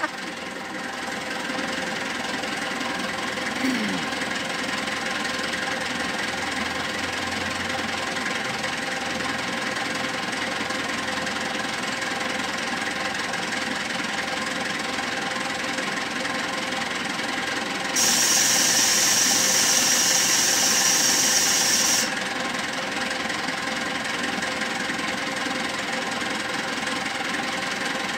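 SYZG wheel loader's diesel engine running steadily while under test after a service. About two-thirds of the way through, a loud high-pitched hiss joins it for about four seconds and stops abruptly.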